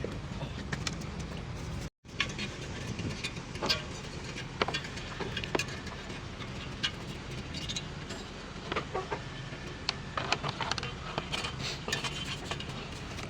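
Scattered metallic clinks and knocks of hand tools and parts being handled over a steady low hum, with a brief break in the sound about two seconds in.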